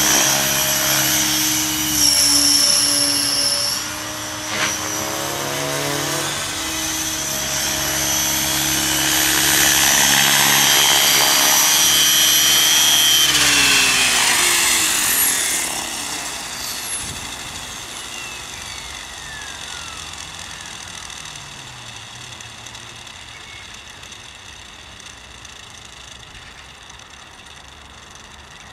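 Align T-Rex 600 electric RC helicopter on a 12-cell pack, its motor and rotors making a loud, steady whine with several pitched tones. About 14 seconds in, the tones slide down in pitch and the sound fades steadily as the motor is cut after landing and the rotor head winds down.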